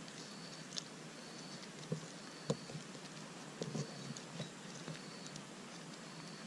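Dry bark cord rustling and crackling as it is handled and pulled tight while being woven into a sandal. A few sharper crackles fall in the middle. A faint high chirp repeats about once a second throughout.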